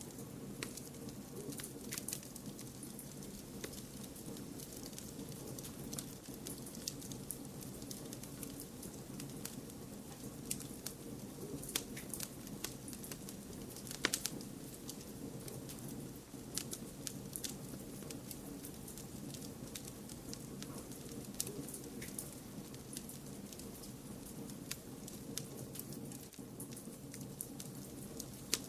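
Wood fire crackling in a fireplace: frequent sharp pops and snaps, irregular, over a steady low rushing noise, with one louder pop about halfway through.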